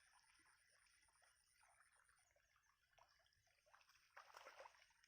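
Near silence: faint outdoor ambience with soft scattered crackles and a thin, faint high steady tone.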